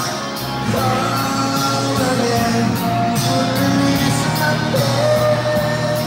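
A man singing into a microphone over a pop backing track with a steady beat, holding long notes.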